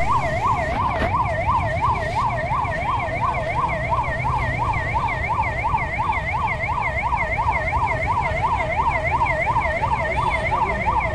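Ambulance siren sounding a rapid yelp, the pitch sweeping up and down evenly about two and a half times a second, over a steady low rumble.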